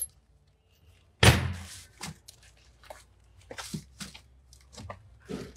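A single heavy thunk about a second in, then a run of lighter knocks and clicks as items are set down and shifted by hand in a cardboard box of goods.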